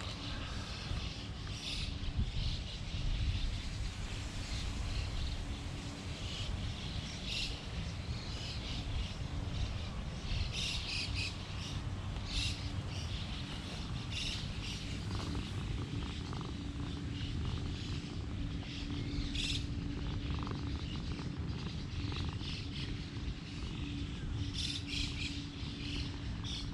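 Small birds chirping on and off, with short high calls scattered throughout, over a steady low outdoor rumble and a faint constant hum.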